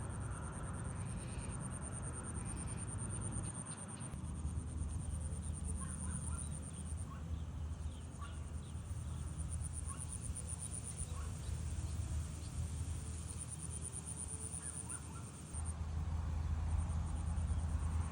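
Open rice-field evening ambience: a steady high-pitched insect drone with short breaks, scattered short bird calls, and a low rumble that grows louder near the end.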